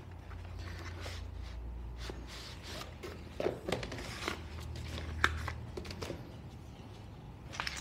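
Scattered light clicks and knocks of rifle parts and tools being handled, over a faint low hum.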